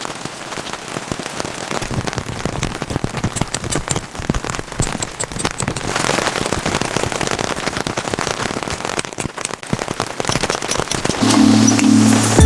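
Rain falling, many drops hitting a surface in a dense, steady patter of small clicks.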